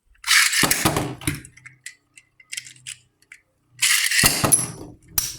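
Beyblade spinning tops being launched with ripcord launchers and clattering in the stadium: two loud bursts of ratcheting and clattering about three and a half seconds apart, then a sharp click near the end.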